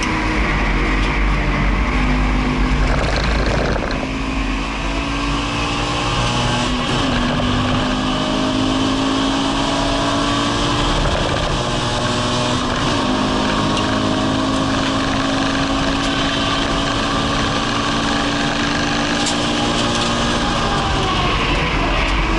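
Subaru BRZ's naturally aspirated 2.0-litre flat-four, heard from inside the cabin under hard acceleration on track. The engine pitch climbs slowly over long stretches, dips once about halfway and climbs again, then falls away near the end as the throttle comes off, over steady road and wind noise.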